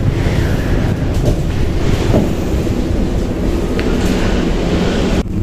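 Ngong Ping 360 gondola cable car heard from inside its cabin while it climbs: a steady rumble with a few light clicks.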